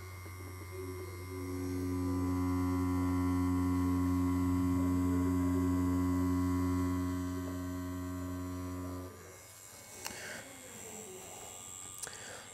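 Direct-drive rotary pen tattoo machine with a 4.5 mm stroke running at a steady hum with overtones while lining practice skin; it starts about a second in and cuts off suddenly about nine seconds in. A few faint clicks follow near the end.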